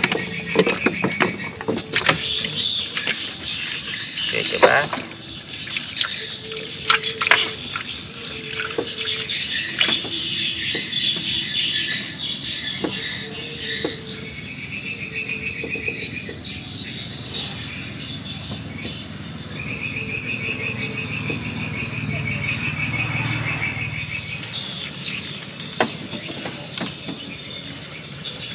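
Crickets trilling in repeated pulsed bursts over a steady high insect hum, with scattered sharp clicks and knocks throughout.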